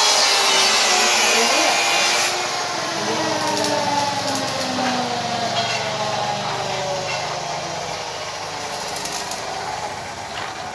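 A power tool runs with a hiss, and its whine falls slowly in pitch over several seconds as it slows.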